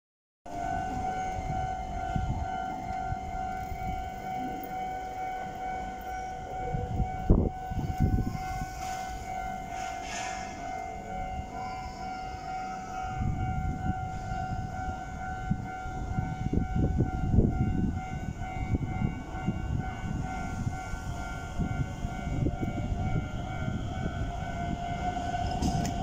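Level-crossing warning alarm sounding a steady electronic tone over low street and station rumble, with a sharp knock about seven seconds in. Near the end the Hokuso 7800-series train's electric motors begin a rising whine as it starts to pull away.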